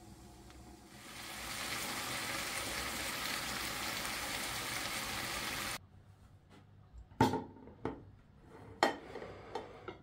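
Vegetables sizzling in a covered frying pan, a steady hiss that builds about a second in and cuts off abruptly near the middle. Then a few short clinks and knocks of dishes being set down on a table.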